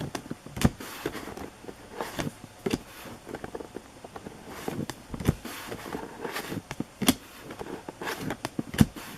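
Baseball trading cards being handled and flipped: irregular sharp clicks and light rustles, a few each second.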